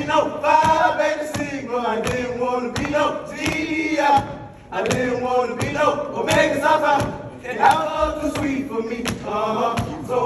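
A line of fraternity new members chanting in unison in loud short phrases, with sharp knocks between them.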